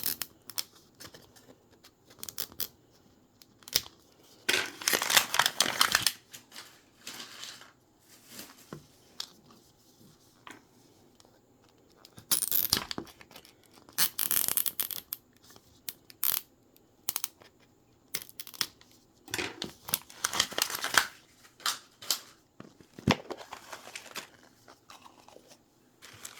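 Plastic wrapping on a Mini Brands capsule ball being torn open and crinkled by hand, in irregular bursts with small clicks of plastic between them.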